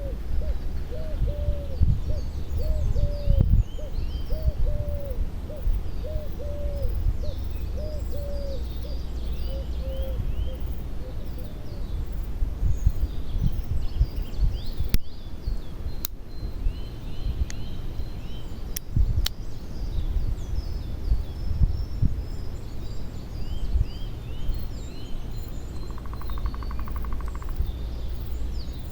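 Outdoor birdsong: one bird repeats a short low call about twice a second for the first dozen seconds, while other birds chirp higher up throughout, over a steady low rumble. A few sharp clicks come in the middle.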